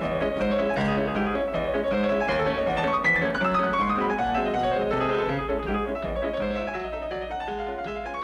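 Background piano music, with a quick falling run of notes about three seconds in, slowly fading toward the end.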